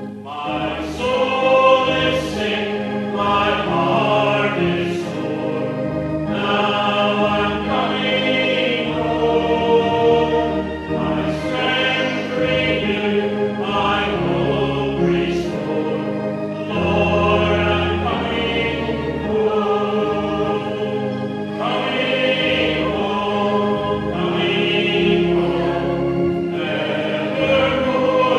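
Congregation singing a hymn together over an instrumental accompaniment with held bass notes.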